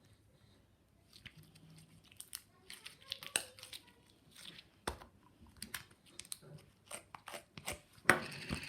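Clear slime being squished and worked by hand, giving irregular sticky clicks and crackling pops, with a louder burst of them near the end.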